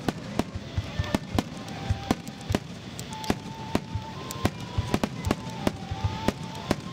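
Aerial firework shells launching and bursting: many sharp bangs in quick, irregular succession.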